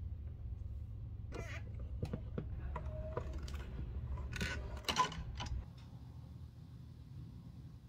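A rotary wheel cutter feeding and slicing through a sheet of black rubber sole material, giving a run of irregular clicks and creaks from the toothed wheel biting the rubber. A low hum runs underneath. Both stop about five and a half seconds in.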